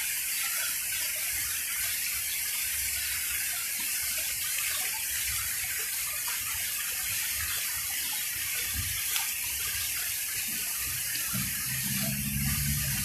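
Pond fountain jet running, a steady hiss and splash of falling water. Near the end a low hum briefly joins in.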